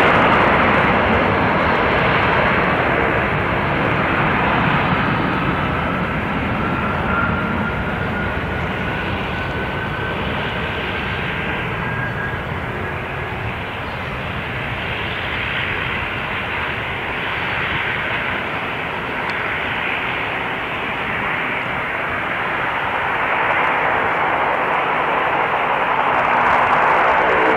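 Jet airliner engines heard at a distance during a takeoff: a steady rushing noise with a faint whine that rises slowly in pitch partway through, swelling louder near the end as the jet climbs away.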